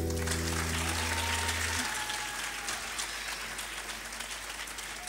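Audience applause from a live concert crowd, over the last acoustic guitar chord ringing out and dying away about two seconds in. The applause slowly fades down.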